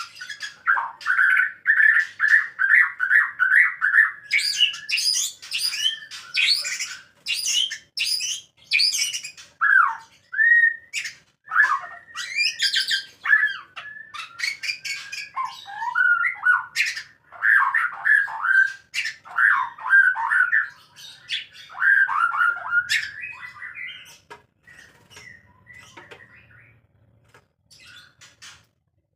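White-rumped shamas calling during courtship and mating. It opens with a fast run of repeated notes, then harsh squawks and whistled, sweeping phrases mixed with sharp clicks, dying down to a few faint calls in the last few seconds.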